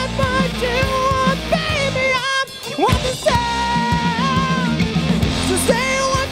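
Live rock band playing electric guitars, bass and drum kit, with a held, bending lead melody line over them. The band briefly drops out for a moment about two and a half seconds in, then comes back in.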